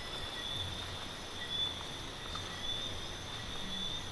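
Night insect chorus of crickets: a steady high trill that swells and fades, with soft low thuds of footsteps through undergrowth about once a second.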